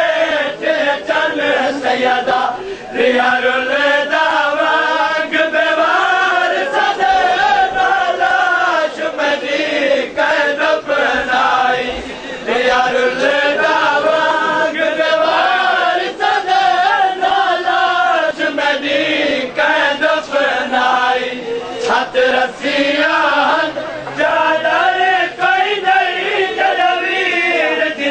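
A crowd of men chanting a noha, a Shia mourning lament, together in a wavering sung melody.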